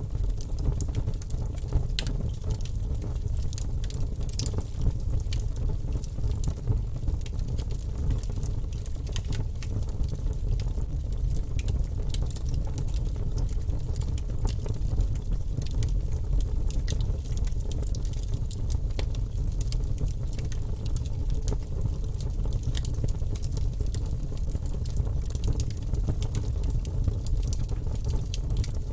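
Wood fire burning in a fireplace: a steady low rumble with frequent small crackles and pops.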